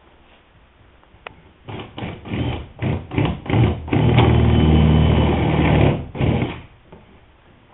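Cordless drill with a long bit boring into the wooden hull: several short trigger bursts, then a steady run of about two seconds before it stops.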